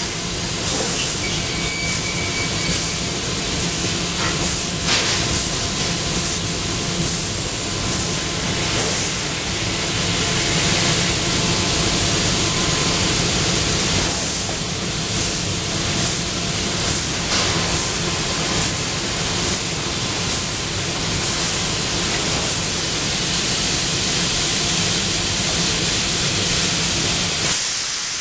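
Trumpf LiftMaster Compact sheet loader running on a laser cutting machine as its suction-cup frame travels and lowers onto a sheet: a steady air hiss over a low machine hum, with occasional short clicks. The low hum drops away near the end.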